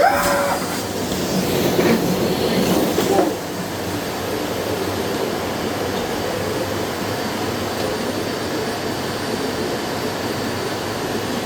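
Miele CX1 Blizzard bagless vacuum cleaner running, louder and more uneven for about the first three seconds, then a steady rush of suction noise.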